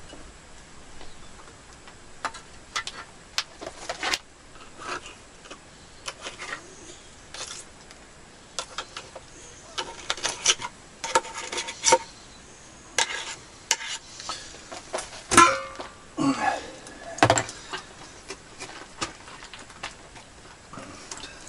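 Scattered clinks, taps and scrapes of a knife and small metal containers being handled on a wooden table, a few of them ringing briefly like struck metal.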